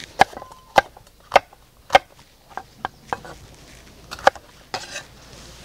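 Kitchen knife slicing a red bell pepper on a wooden cutting board: a run of sharp knocks of the blade on the board, roughly two a second, with a pause of about a second after three seconds.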